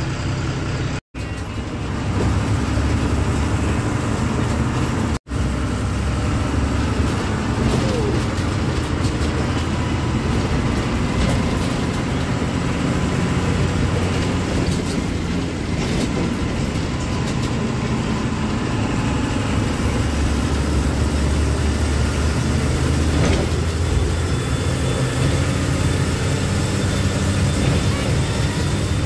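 Bus engine running and road noise heard from inside the moving bus's cabin, a steady low rumble. The sound drops out briefly twice in the first few seconds.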